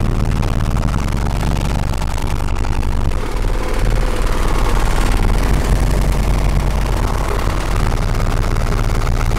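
Loud, deep bass from three Crossfire XS V2 18-inch subwoofers playing inside a car, steady and heavy at the very bottom of the range with a rough, overdriven edge.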